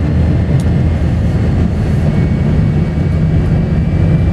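Steady low hum of a large vehicle's engine running, its pitch shifting about two seconds in.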